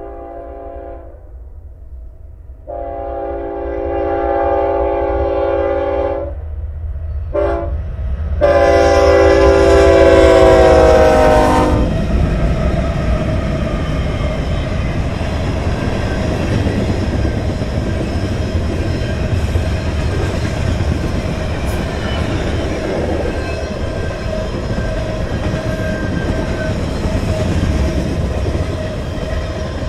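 Diesel freight locomotive's multi-note air horn sounding the long, long, short, long grade-crossing signal as the train approaches. The last long blast is the loudest and drops in pitch as the locomotive passes. Then comes the steady rumble and clatter of the freight cars' wheels rolling by on the rails.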